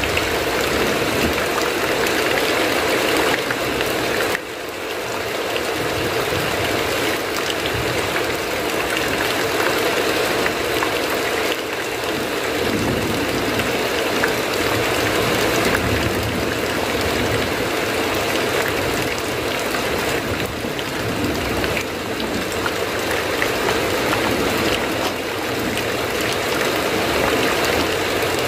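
Heavy rain falling steadily: a dense, even hiss, with a brief dip in loudness about four seconds in.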